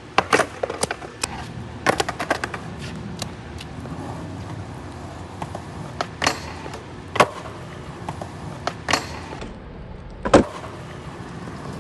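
Skateboard rolling on wet concrete with repeated sharp clacks of the board and trucks hitting the ground, and one heavy thud about ten seconds in.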